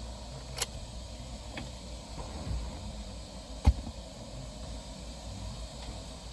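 A few light clicks and one sharp knock about two-thirds of the way through, from hand tools and car parts being handled while the battery is being reconnected, over a low steady hiss.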